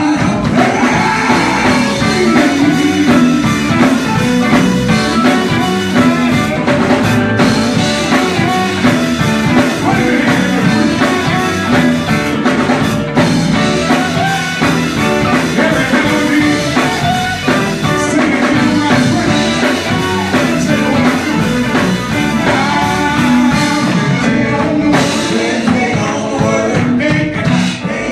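Live gospel music: a male lead singer singing into a microphone over a band with drums and keyboard.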